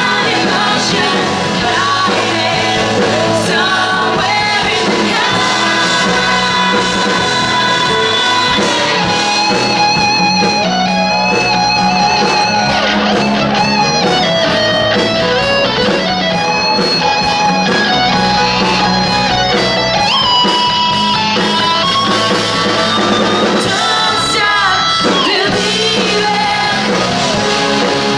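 Live rock band playing with guitars, bass and fiddle, with singing over it.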